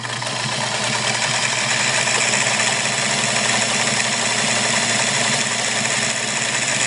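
Singer Model 237 sewing machine running steadily at full speed, zigzag-stitching through seven layers of fabric, fleece and nylon webbing: a steady motor hum under the fast clatter of needle and feed.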